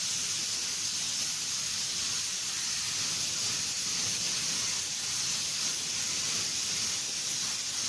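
Compressed-air paint spray gun hissing steadily as it lays a thin coat of epoxy primer over a filled patch on a car bumper.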